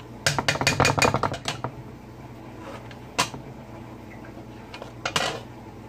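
A spoon knocking and scraping against a frying pan while stirring meat: a quick run of clatters in the first second and a half, then single knocks about three and five seconds in.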